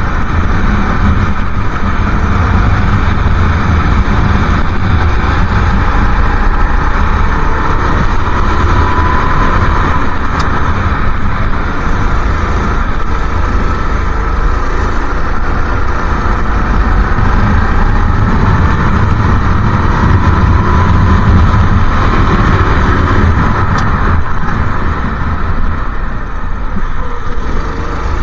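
Go-kart engine running at racing speed, its pitch rising and falling with the throttle through the corners, over a steady low rumble.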